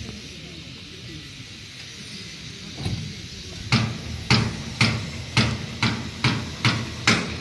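A run of sharp, evenly spaced knocks or blows, about two a second, starting about halfway through, each with a short ringing tail.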